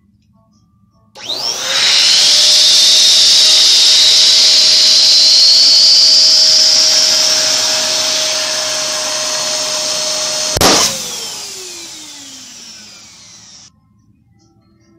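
Electric balloon pump starts about a second in and runs steadily, blowing up a latex balloon, until the balloon bursts with one sharp pop. After the pop the pump's whine falls in pitch and dies away as the motor winds down.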